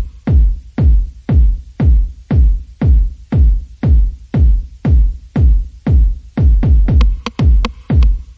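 Electronic dance music with a heavy kick drum on every beat, about two beats a second, and hi-hat ticks between them.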